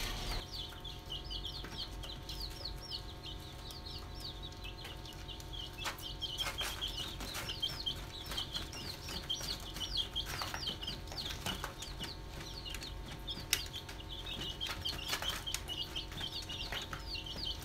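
Chicken chicks peeping continuously, many short high falling peeps overlapping, several a second. Scattered sharp clicks run underneath, one stronger about two-thirds of the way in.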